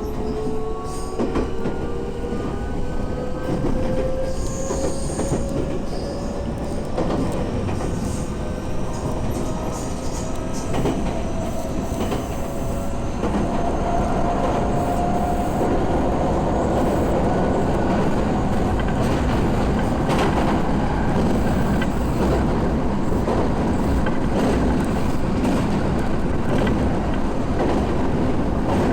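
Electric commuter train running, heard inside the passenger car: the traction motors whine, rising slowly in pitch as the train picks up speed, over a steady rumble of wheels on rail. About halfway through the whine levels off and the running noise grows a little louder.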